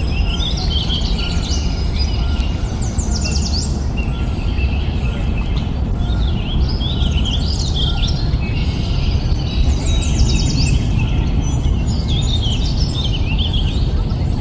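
Small songbirds chirping and singing in repeated short bouts of quick high notes, including fast descending runs, over a steady low rumble.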